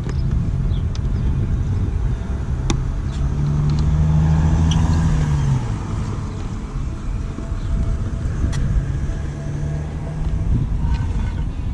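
A motor vehicle's engine running, a low hum that swells from about three seconds in and drops away near six seconds, then rises again briefly. A few sharp clicks are heard along with it.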